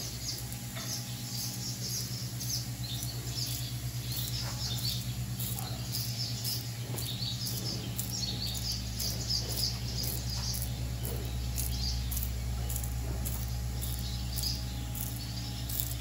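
Hand-milking a cow: squirts of milk hissing onto a wet concrete floor roughly every half second to second. Birds chirp throughout over a steady low machine hum.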